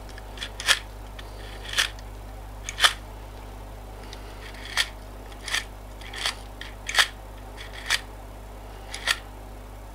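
Plastic changeover mechanism of an IEK AVR-1 Standard Karat 63A automatic transfer switch clicking as it is worked by hand with its yellow handle: about nine short, sharp snaps, roughly one a second.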